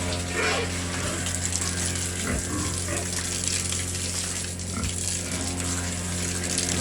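Water spraying from a hose over a steady low machine hum, likely a pump, while pigs being washed give a few short grunts.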